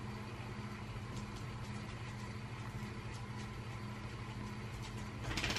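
Window air conditioner running with a steady low hum. A brief rustle comes near the end.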